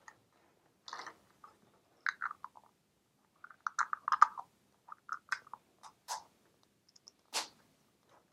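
Plastic Easter egg shells and their plastic packaging being handled, giving irregular short crinkles and clicks, with a sharper crackle near the end.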